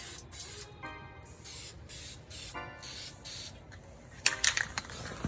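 Spray paint hissing from a nozzle in short, repeated bursts, the loudest about four seconds in.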